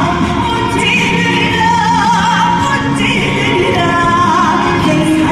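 Trot music performed live: band backing under a lead melody line with a wide vibrato.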